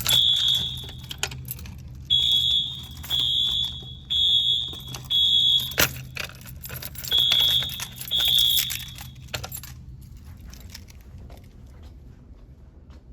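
Wheelock MT fire alarm horns on a Simplex 4020 system sounding in short, high-pitched tone pulses during an audible walk test, signalling that a device has been activated. There is one longer blast, then a run of pulses about a second apart with a short break, and the horns stop about nine seconds in. Keys jangle and click throughout.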